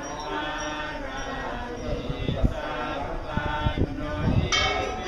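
A group of voices chanting together in layered, sustained tones, with several low thumps and a short hiss near the end.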